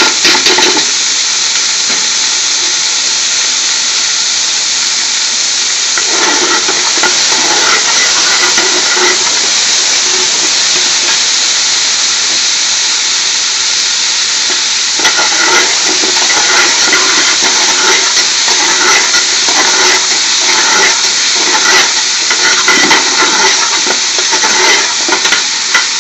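Chopped onions and garlic frying in hot oil in a pan, a loud steady sizzle. Stirring noises join in from about six seconds in and again from about fifteen seconds on.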